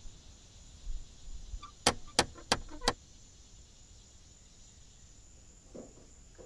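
Four sharp knocks on a heavy wooden front door, about a third of a second apart, about two seconds in.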